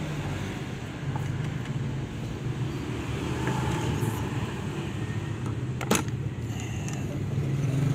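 A steady low hum from a running motor, with one sharp click of a hand tool against the Vespa engine casing about six seconds in.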